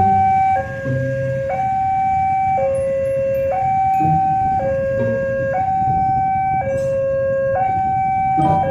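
Electronic level-crossing warning alarm sounding a two-tone high–low pattern, switching pitch about once a second, over the low running of motorcycle engines.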